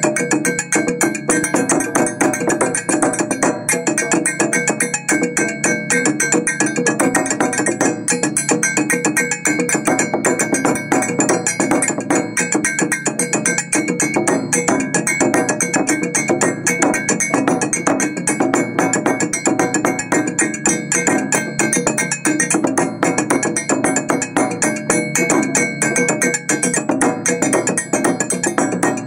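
West African dundun bass drums beaten with sticks while iron bells mounted on the drums are struck with a beater, playing a fast, dense interlocking rhythm with the bells ringing over the drums.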